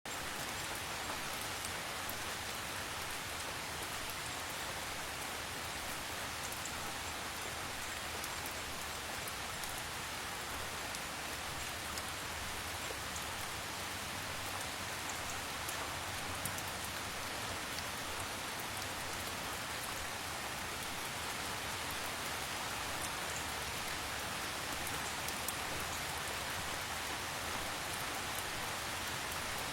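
Steady, gentle rain falling: an even hiss with faint scattered drop ticks, unchanging throughout.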